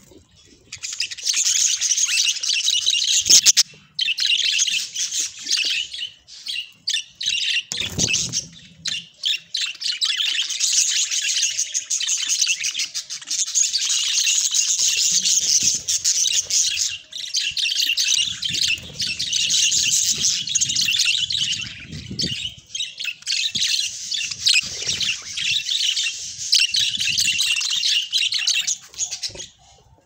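A flock of budgerigars chattering continuously, a dense, high-pitched twittering with a few short pauses.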